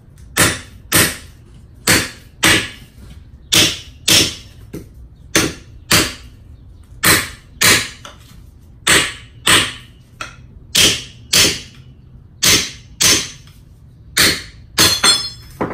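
A Stanley hammer strikes the steel spring seat on an upside-down BMW F80 M3 front strut, knocking the seat loose so it can come off. The sharp metallic strikes come in pairs about half a second apart, a pair roughly every second and a half, with a quicker run of strikes and a ringing near the end.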